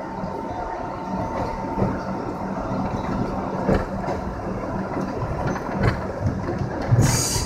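R62A subway train running through a tunnel: a steady rumble of steel wheels on rail with a low hum and irregular clicks over the rail joints. A short, sharp hiss comes near the end.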